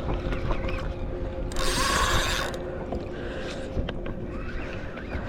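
Fishing reel being cranked, its gears clicking, while a fish is brought in to the kayak. About a second and a half in, a loud rush of noise lasts about a second.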